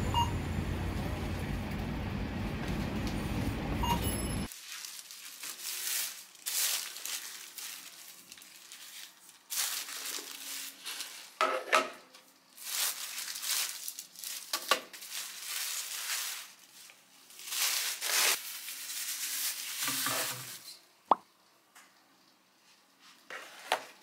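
Supermarket background din that cuts off suddenly about four seconds in. After it, plastic shopping bags rustle and crinkle in repeated bursts as groceries are unpacked onto a table, with light knocks of items being set down and one sharp click a little after twenty seconds in.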